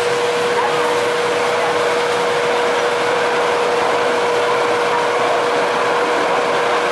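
Light rail car running at steady speed, heard from inside the passenger car: an even running noise with a steady hum that holds one pitch.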